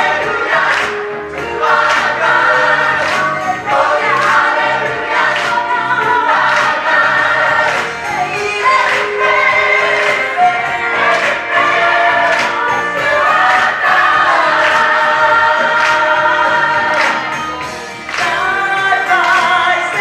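Gospel choir singing in harmony, men's, women's and children's voices together, over an accompaniment with a bass line and a steady beat.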